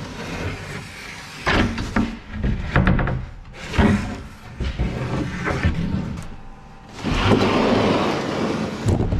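Clunks and knocks of things being moved around in a pickup truck bed, followed about seven seconds in by a rushing, scraping noise that lasts about two seconds.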